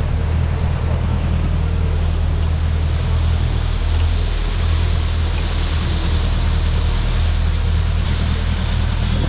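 Sportfishing boat's engines running steadily under way, a low drone under the hiss of water rushing past the hull and wake.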